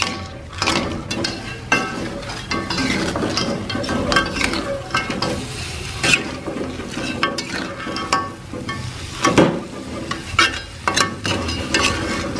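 A metal spatula stirring and scraping crabs in a wok, with irregular scrapes and clinks over the sizzle of frying oil.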